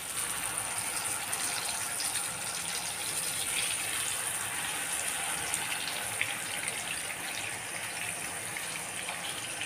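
Masala-marinated king mackerel sizzling in hot coconut oil in a kadai, with scattered pops. The sizzling starts suddenly as the first piece goes into the oil and keeps up as more pieces are laid in.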